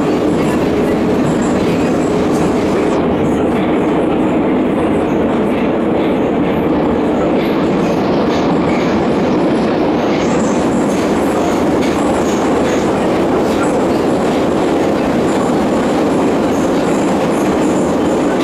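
Metro train running through a tunnel, heard from inside the passenger carriage: a loud, steady rumble of wheels on the rails.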